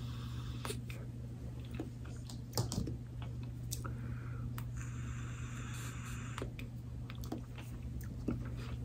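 GeekVape Wenax K1 pod vape being drawn on and exhaled: a soft hiss of air in two stretches, the longer one about halfway through, with scattered small clicks over a steady low hum.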